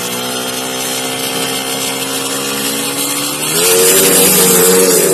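Drag-racing motorcycle engine running at a steady speed, then revved up about three and a half seconds in, getting louder and harsher.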